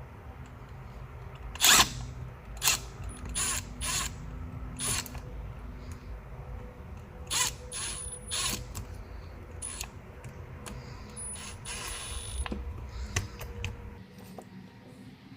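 A tool driving screws in short bursts, with mechanical clicking and whirring about ten times in a row and short pauses between.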